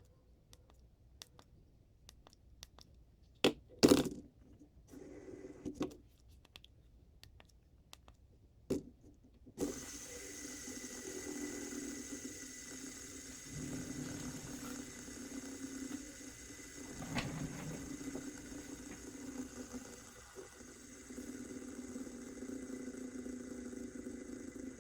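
Scattered light clicks and taps with one louder knock, then about ten seconds in a steady mechanical hum starts suddenly and keeps going.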